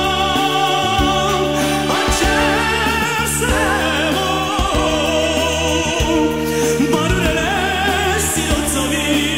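A man singing a song full-voiced into a microphone, holding long notes with vibrato, over instrumental accompaniment with a steady beat.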